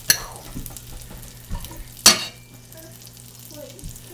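Hot dogs sizzling as they fry in a pan, with two sharp clacks, one at the start and one about two seconds in.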